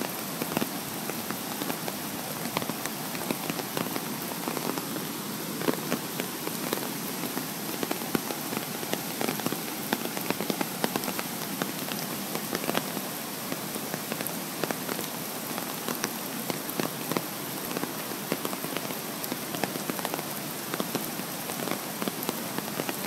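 Flood-swollen, muddy river rushing: a steady wash of water noise peppered with many small sharp splashes.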